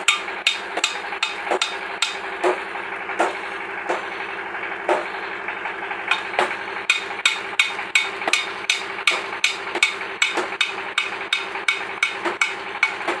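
Hammer striking metal again and again, in quick irregular strokes of several a second, over a steady hum.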